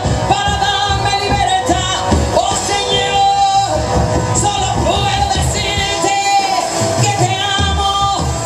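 Live evangelical worship band playing loud through a powerful outdoor PA system: a lead singer over guitars and a steady beat.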